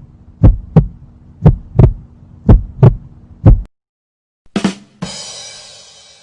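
Heartbeat sound effect: low double thumps (lub-dub) about once a second, stopping abruptly after about three and a half seconds. Near the end a short hit is followed by a bright, fading sound.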